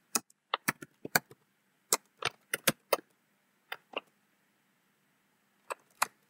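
Computer keyboard keystrokes as a terminal command is typed: a quick, irregular run of clicks over the first three seconds, then a few single key presses.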